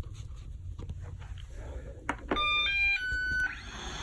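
A knock about two seconds in, then a robot vacuum cleaner plays a short electronic chime: a quick run of clean beeps stepping through several pitches, about a second long. A rising hiss begins near the end.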